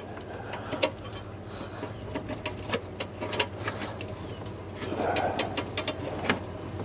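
Scattered sharp metal clicks and clinks of hand tools working on the starter bolts, with a brief low cooing sound about five seconds in.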